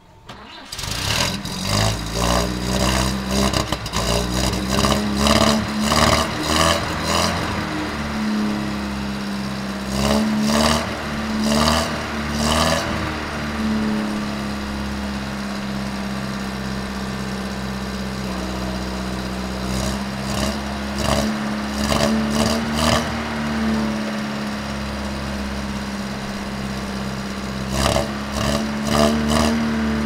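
Renault R2067 Goelette truck engine starting up about a second in, then running, with the revs rising and falling a few times.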